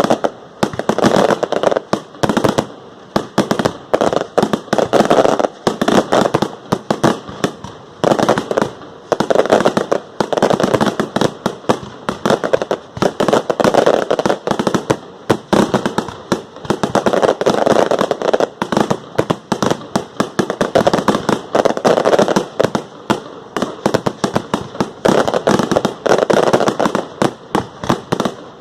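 Fireworks display: a dense, continuous run of sharp bangs and crackles, many a second, swelling louder every few seconds.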